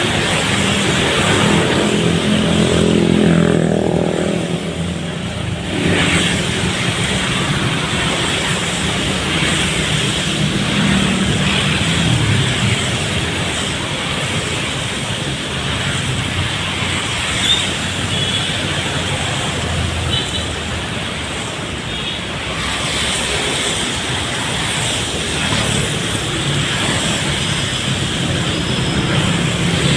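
Road traffic in heavy rain: a steady hiss of rain and wet tyres throughout, with a vehicle engine passing in the first few seconds.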